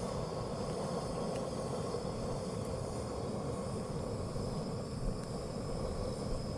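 Trangia 27 camping stove's gas burner burning with a steady hiss under a pan.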